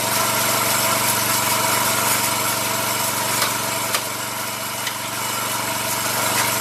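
Small petrol engine on a walk-behind rice reaper running steadily, with a couple of sharp clicks around the middle.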